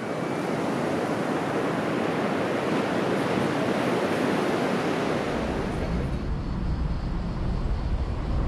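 Rough sea surf breaking and washing up the beach, a steady rushing noise. About two-thirds of the way through it gives way to the low rumble of a vehicle driving.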